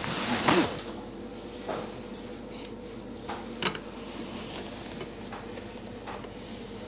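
Light knocks and clinks of cups and dishes on a café table over a steady hum. A louder short sound with a falling pitch comes about half a second in.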